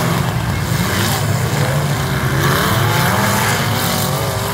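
Several demolition derby stock cars' engines running and revving together, their pitch rising and falling.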